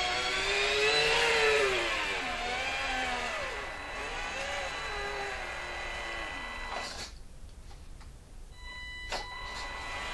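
Electric drive motor and gearbox of a 1:14-scale RC dump truck whining as it drives, the pitch rising and falling with the throttle. The whine stops about seven seconds in as the truck halts, followed by a couple of sharp clicks.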